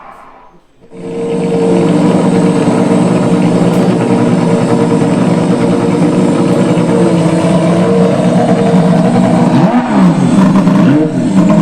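Porsche Design 911 Soundbar, built from a 911 GT3 exhaust silencer, played at its maximum volume. It comes in suddenly about a second in with a loud, steady, engine-like note that wavers in pitch near the end.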